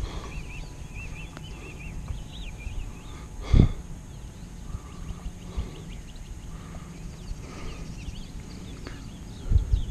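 A single dull thump about three and a half seconds in, over a low rumbling background with faint short high chirps.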